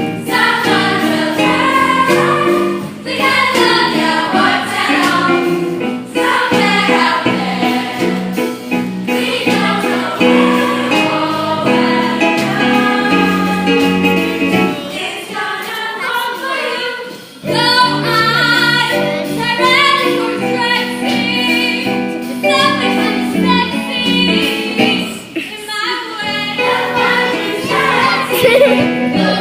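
A song from a stage musical: singing voices with instrumental accompaniment, briefly dropping away a little past halfway before the music picks up again.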